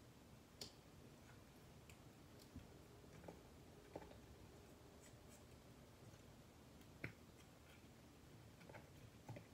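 Faint, scattered clicks and small plastic handling noises as a 9-volt battery's snap connector is fitted in the open battery compartment of a Southwire clamp meter. The sharpest clicks come about half a second, four seconds and seven seconds in.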